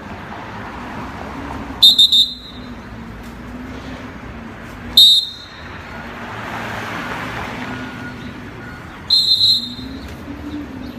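Dog-training whistle blown in short, shrill blasts: a quick double toot about two seconds in, a single blast about five seconds in, and a quick run of toots a little after nine seconds. These are whistle commands to the dog, a single blast for sit and repeated toots for recall.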